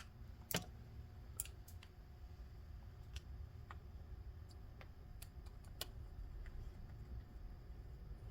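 Faint, scattered small clicks and taps of a screwdriver and a small plastic switch being handled as a new front brake light switch is screwed onto a motorcycle's brake lever; the loudest click comes about half a second in.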